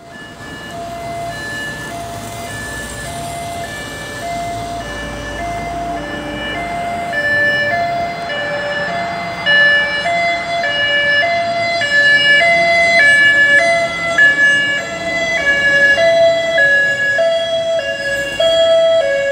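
Fire engine's two-tone siren, alternating between a higher and a lower note about twice a second. It grows steadily louder as the engine approaches.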